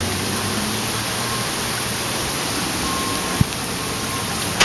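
Heavy rain falling: a steady, even hiss. A brief low thump comes about three and a half seconds in, and the rain sound cuts off suddenly at the end.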